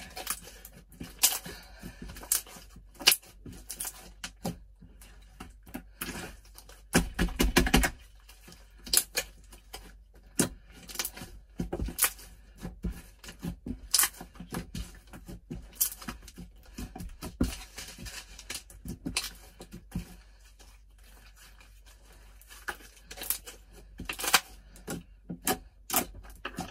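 Hands kneading and squishing a wet white-glue-and-borax slime, giving irregular sharp clicks and pops, with a rapid cluster of pops about seven seconds in.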